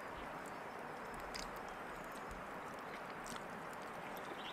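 A person quietly chewing food, with a few soft, faint clicks about a second apart over a steady low background hiss.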